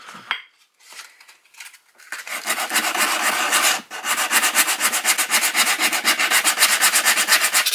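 Sandpaper rubbed quickly back and forth along a wooden hatchet handle, scraping off old paint. The rasping strokes start about two seconds in, come several a second with a brief pause near the middle, and then run on steadily.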